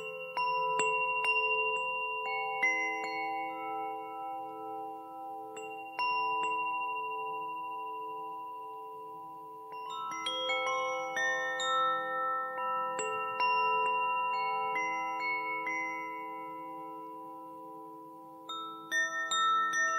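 Tuned Nada wind chimes ringing in slow flurries. Every few seconds a cluster of bright struck notes sounds, and the notes ring on, overlap and slowly fade, some with a gentle wavering.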